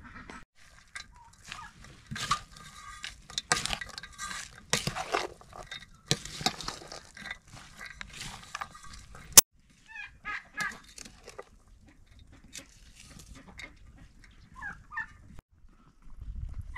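A wooden spoon scrapes and stirs raw rice with onion and spices in an enamel bowl, in a run of short rustling strokes that ends with a sharp click. Then come short calls, as of chickens clucking.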